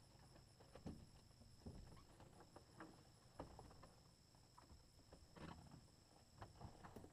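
Near silence with faint, scattered knocks and rustles as a man climbs into a Titan Tornado II light aircraft's cockpit and settles into the seat, plus a faint steady high-pitched tone.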